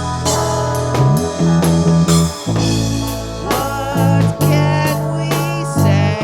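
Rock music: a band with drum kit, bass and guitar plays an instrumental passage, with the bass notes changing about every second and a wavering higher line above.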